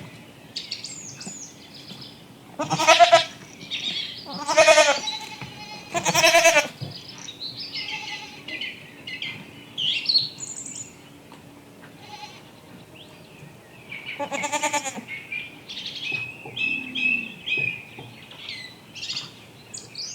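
Goats bleating four times: three loud bleats close together in the first seven seconds and one more about two thirds of the way through. Small birds chirp and sing throughout, between the bleats.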